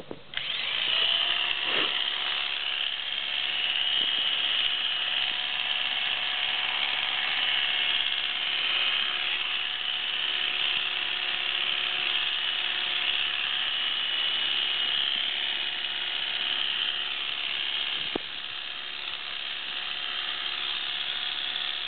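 Electric pet clippers buzzing steadily as they shave a cat's fur, starting about half a second in.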